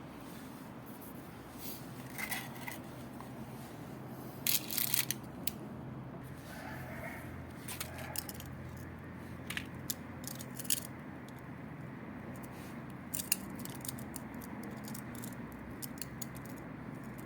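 Scattered light clicks, small rattles and scrapes of hand tools and parts being handled during motorcycle oil-change work, over a steady low hum.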